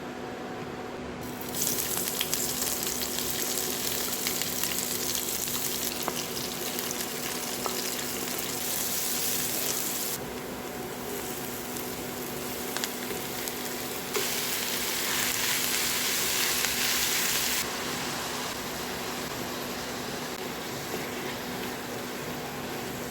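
Mushrooms frying in hot oil in a pan, a steady crackling sizzle. It starts about a second and a half in, and is loudest early on and again from about fourteen to seventeen seconds.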